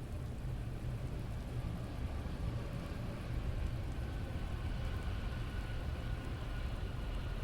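Steady rain: an even hiss over a deep, constant low rumble, with faint high tones coming in about halfway through.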